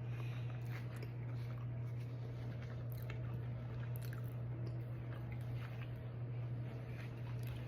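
Pizza rolls being chewed close to the microphone: scattered wet smacks and small crunchy clicks, over a steady low hum.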